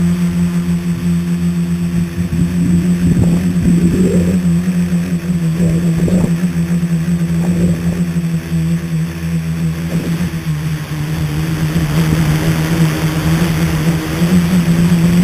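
Tricopter's motors and propellers droning at a steady pitch, heard from the camera mounted on the craft.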